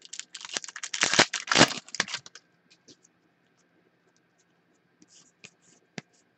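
Foil wrapper of a trading card pack being torn open and crinkled for about two seconds. After that come faint scattered ticks as the cards are slid out and handled.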